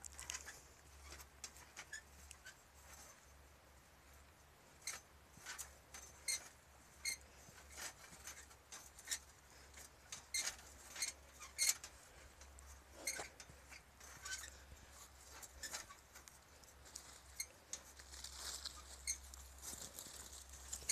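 Footsteps crunching on a gravelly dirt trail, in irregular sharp steps about one or two a second.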